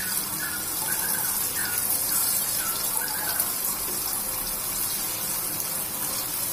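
Battered banana slices deep-frying in hot oil in a frying pan: a steady, high sizzle. Through the first half a short high chirp repeats about twice a second.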